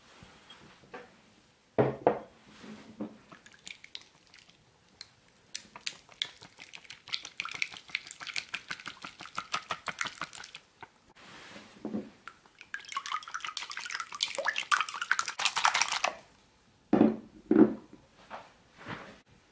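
Whisk beating eggs in a ceramic bowl: two spells of fast, rapid clicking strokes against the bowl, with a few heavier knocks from the bowls and whisk near the start and near the end.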